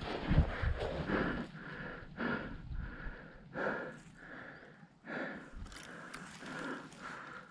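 A person breathing hard close to the microphone: quick, even, noisy breaths, a little under two a second.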